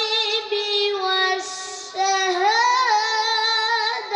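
A boy's voice chanting melodically into a microphone, with long held notes that bend and waver. He breaks off briefly about a second and a half in, then carries on.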